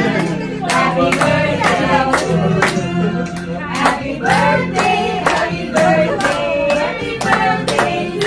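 Music with singing over a steady beat of about two strokes a second, with hands clapping along.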